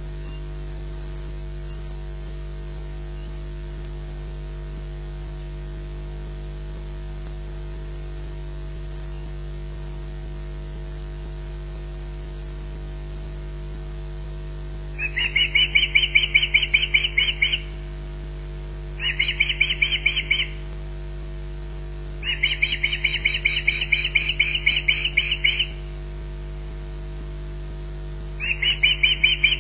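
Osprey alarm calls: four bouts of rapid, evenly repeated high chirps, starting about halfway in. These are warning calls at corvids near the nest. A steady electrical hum from the nest-camera feed runs underneath.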